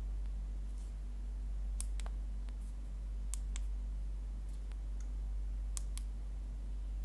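Samsung Galaxy S21 Ultra side buttons pressed through the raised button covers of a clear soft phone case, giving three crisp press-and-release click pairs, plus a few fainter ticks. A steady low hum runs underneath.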